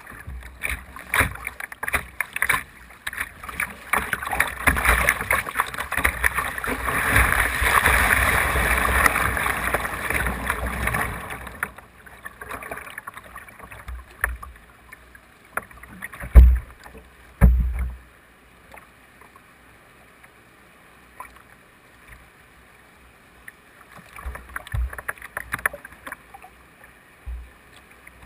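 Whitewater rushing and splashing around a kayak's bow, picked up at water level; the rush is loud and continuous through the first dozen seconds. Then it turns quieter, with two heavy low thumps about midway and a few scattered splashes near the end.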